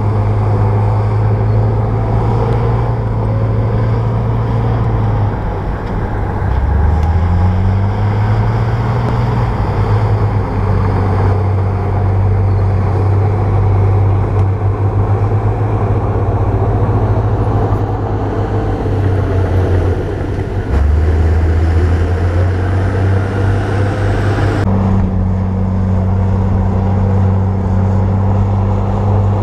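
Bulldozer's diesel engine working while pushing soil, running steadily with its pitch dipping and climbing back twice. The sound changes abruptly near the end.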